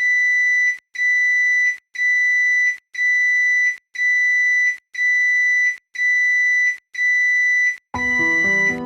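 Microwave oven beeper sounding one high, steady electronic beep about once a second, eight long beeps in a row. Near the end, music comes in under the beeping.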